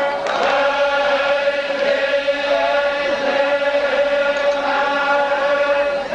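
Zikri chogan: devotional chanting sung on one long held note.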